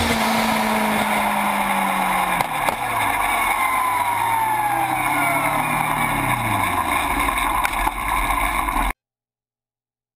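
Sportbike engine and exhaust heard at close range on the move, over steady road and wind noise. The engine note drops about two and a half seconds in, then rises and falls again before the sound cuts off abruptly near the end.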